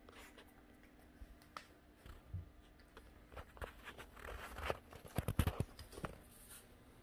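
A French bulldog puppy's claws clicking and pattering on a tile floor, with a cluster of louder knocks about five seconds in.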